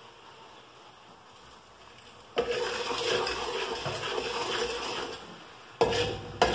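A metal spatula scraping and stirring in a large metal uruli of boiling sugar syrup, starting suddenly about two seconds in, pausing briefly near the end, then starting again. Before the stirring there is only a faint hiss.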